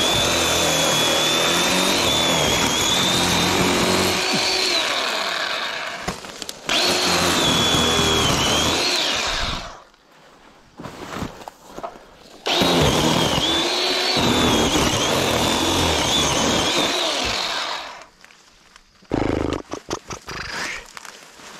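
Chainsaw cutting through lilac trunks with a wavering high whine, in two long runs. The first lasts nearly ten seconds with a brief dip partway through; the second starts a few seconds after it stops. Between the runs and after them the saw goes quiet, leaving light rustling and knocks.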